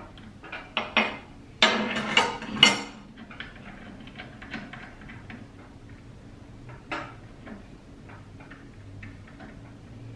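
Light metal clinks and rattles as a router bit's steel shank and bearing are fitted into the collet of a table router. A cluster of louder clinks comes about two seconds in, then fainter scattered ticks.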